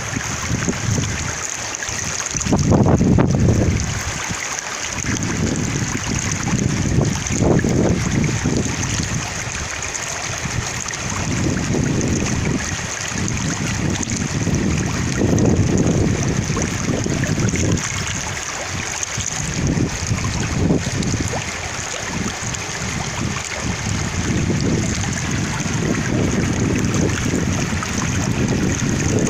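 Water flowing steadily in a stream, with gusts of winter wind rumbling on the microphone every few seconds.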